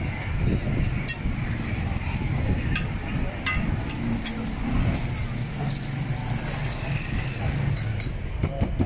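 Street traffic rumbling steadily, with several sharp metallic clinks scattered through it.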